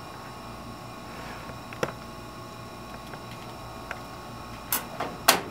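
Steady hum of a biosafety cabinet's fan with fixed tones, under a light click about two seconds in and two sharp clicks near the end from handling a serological pipette and plastic centrifuge tube.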